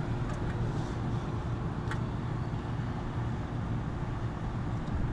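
Steady low machine hum with a faint higher tone, and a few faint clicks as a wire terminal on an air conditioner capacitor is worked tighter by hand.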